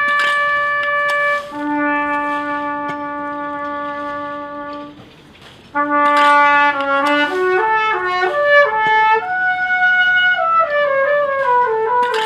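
Music: a trumpet playing long held notes, a high one and then a lower one for about three seconds, a brief break about five seconds in, then a moving melodic phrase that steps down near the end.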